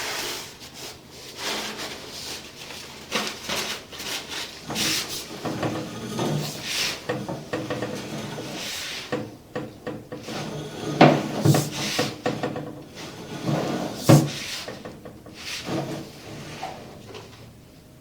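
Irregular knocking and rubbing, like hard objects being handled and scraping, with two sharper, louder knocks about 11 and 14 seconds in.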